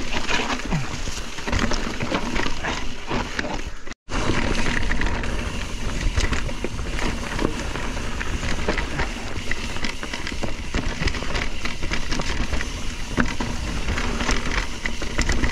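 Mountain bike riding down a rough, wet rock trail: steady rattling and clattering of the bike and tyres over the rocks, under a continuous rush of noise. There is a brief cut to silence about four seconds in.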